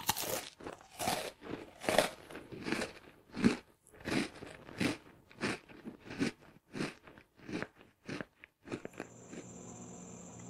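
Close-miked crunching bites of crisp food, a dozen or so sharp crunches about every three-quarters of a second. From about nine seconds in they give way to a steady low hum with a faint high whine.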